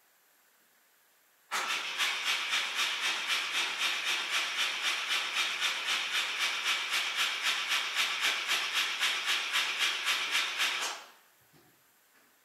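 Citroën GS engine being cranked by its starter on a cold start: a rhythmic, hiss-like churning at about four beats a second. It starts suddenly, runs about nine seconds and stops abruptly without the engine catching.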